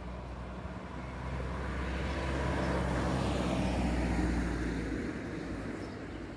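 A motor vehicle passing on a nearby road: its engine and tyre noise swells to a peak about four seconds in, then fades away.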